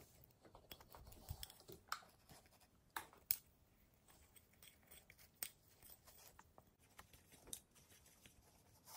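Near silence, broken by scattered faint clicks and scrapes of a metal fork against a clear cup as sticky melted bubblegum and cornstarch are stirred.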